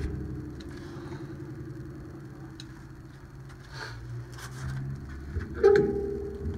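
A steady low engine hum runs underneath, with a few light metal clicks and a louder scrape about five and a half seconds in as a twin-piston rear brake caliper is worked with a clamp and a screw tool.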